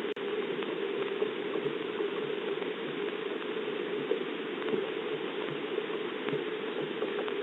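Steady rain falling, picked up by an outdoor security camera's microphone as an even hiss with scattered faint ticks of drops.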